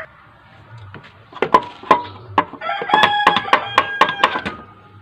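A rooster crowing: one drawn-out call held on a steady pitch in the second half, with a string of short sharp sounds before and through it.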